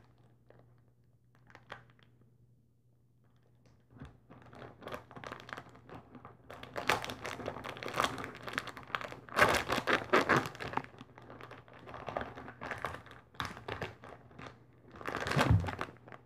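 Clear plastic candy wrapper crinkling and tearing as it is pulled open by hand. It starts about four seconds in, with the loudest crackling around ten seconds in and again just before the end.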